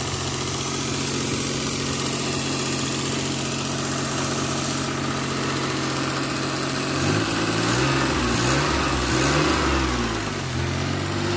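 Freshly rebuilt Geo Metro engine idling steadily. From about seven seconds in it is revved up and down several times by hand at the throttle, then settles back to idle. The owner blames the idle on a stuck, bad idle air control valve.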